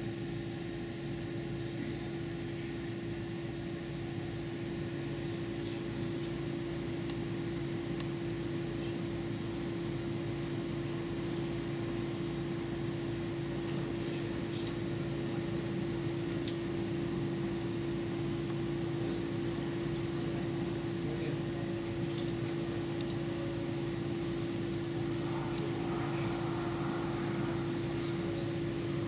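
Steady mechanical hum of aquarium equipment, holding one constant tone with a weaker lower tone beneath it.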